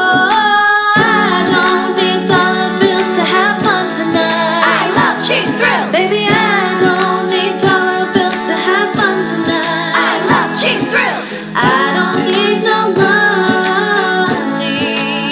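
A woman singing an a cappella soprano line without words, with sliding notes, over a steady clicking beat.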